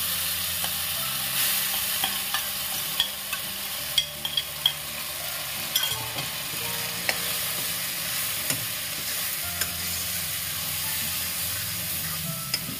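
Ground horse gram (gahat) paste sizzling in hot ghee in an iron kadhai while a steel ladle stirs and scrapes it, with irregular sharp clicks of the ladle against the pan.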